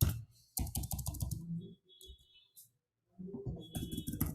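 Typing on a computer keyboard: two bursts of quick key clicks, the first about half a second in and the second near the end.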